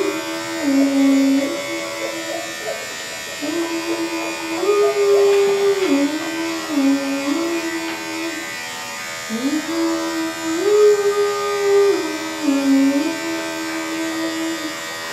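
Electric dog grooming clippers running steadily with a thin buzzing whine. Over them, and louder, a simple melody of held notes stepping up and down, the same short phrase repeating about every five seconds.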